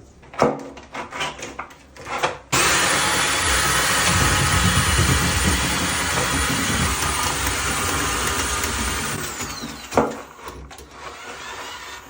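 A power tool's electric motor switches on abruptly and runs steadily for about seven seconds with a loud hiss and whine, then winds down. A few knocks come before it and one after.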